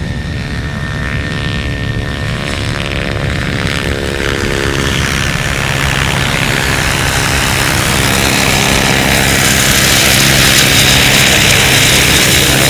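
Helicopter rotor and engine approaching and coming in low to land, growing steadily louder. The rush of air from the rotor builds toward the end.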